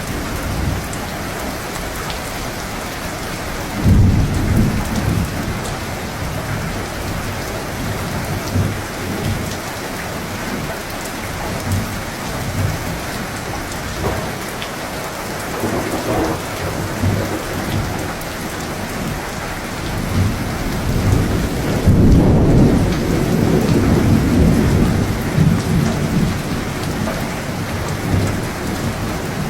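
Steady heavy rain with rolling thunder: a short rumble about four seconds in, a fainter one around the middle, and a longer, louder roll starting a little past two-thirds of the way through.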